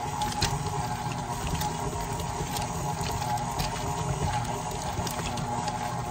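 KitchenAid stand mixer running on low with the flat paddle, shredding cooked chicken breasts. The motor hums steadily under soft wet slapping and pattering of the meat in the bowl.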